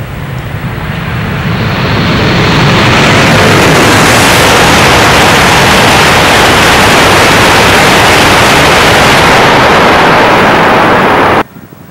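E5 series Tohoku Shinkansen passing straight through a station at high speed: a rushing roar that builds over the first few seconds as it approaches, then holds loud and steady as the train goes by, and cuts off suddenly near the end.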